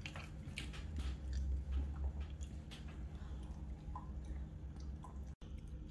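Quiet eating and handling sounds: faint chewing with scattered small clicks and taps, over a steady low hum.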